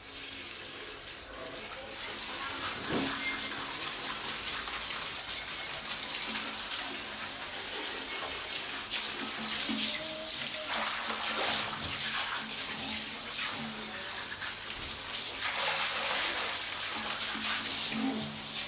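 Shower spray running steadily, water hissing onto a wet tiled floor.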